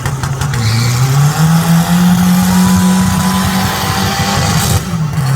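Car engine revved and held at high revs: its pitch climbs about a second in, stays up, dips near the end and climbs again.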